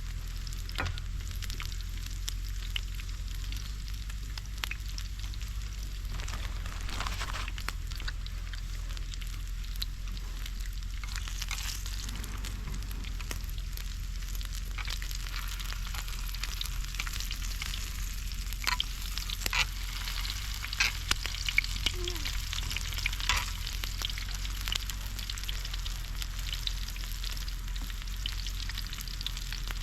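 Food sizzling and crackling in a hot pan, a steady frying hiss with scattered sharp pops, a cluster of louder pops about two-thirds of the way through.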